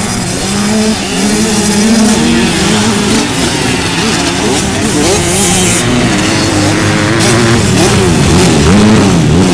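Motocross dirt bike engines racing, their pitch rising and falling again and again as the riders work the throttle through the track.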